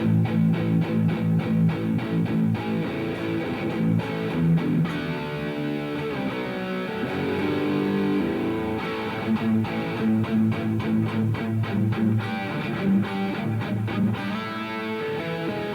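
Electric guitar played through a Revv G3 distortion pedal: heavily distorted riffing, with bursts of fast chugging strokes near the start and again in the second half, between held chords.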